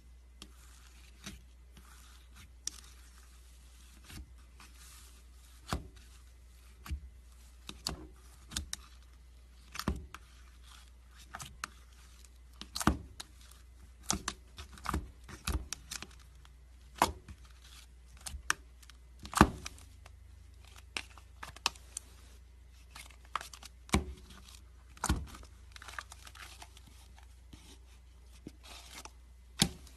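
Clear glitter slime being squeezed and poked by fingers in a plastic tub, giving irregular sharp clicks and pops. A low steady hum runs underneath.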